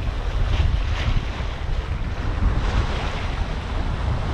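Wind buffeting the microphone over the steady rush of water along a sailboat's hull while under sail.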